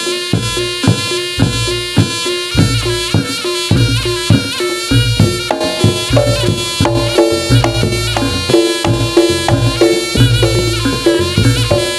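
Reog Ponorogo obyokan music: a nasal slompret (shawm) melody with sliding, bending notes over a steady beat of kendang drums and deep gong-like strokes.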